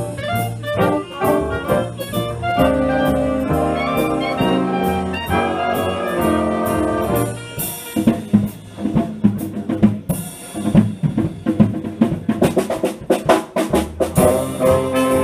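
Big band playing swing jazz: the saxophone, clarinet and brass sections play full ensemble lines over string bass and drums. About seven and a half seconds in, the drum kit takes over with a run of sharp hits, and the full band comes back in near the end.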